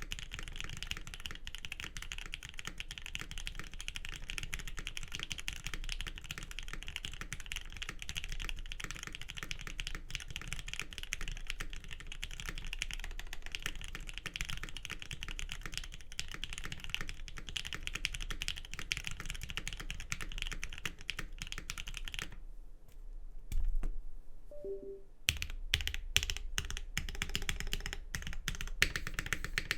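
Fast, continuous typing on a Geon Frog TKL mechanical keyboard with an aluminium plate, Krytox-lubed Lavender switches and GMK keycaps. Near the end the typing stops for about three seconds, broken by a dull thump, then resumes as more separate keystrokes.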